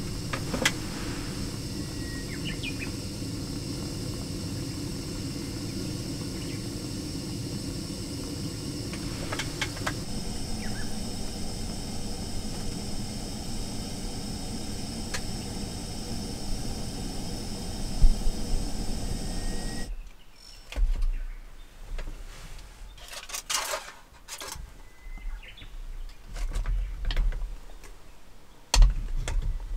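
A steady rushing hiss with a dull thump near its end, cutting off abruptly about twenty seconds in. Then come scattered clicks and a sharp knock near the end as a metal hot sandwich maker is lifted and flipped over a gas burner, with a few faint bird chirps.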